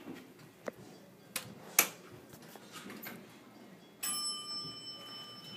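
Evans elevator lobby: a few sharp clicks at the hall call buttons in the first two seconds. About four seconds in, a steady high sound of several fixed pitches starts abruptly and holds as the car arrives.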